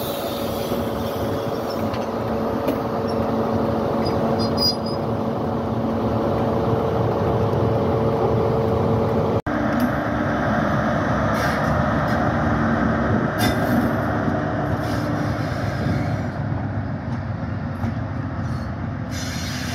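Class 43 HST power car diesel engine running as the train moves slowly past, a steady loud drone with a constant engine hum. It breaks off for an instant about halfway through and carries on at a slightly different pitch.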